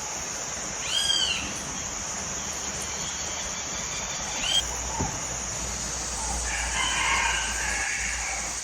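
Farmyard chickens calling: short bird calls about a second in and again around four and a half seconds, then a longer rooster crow in the last two seconds, over a steady high hiss.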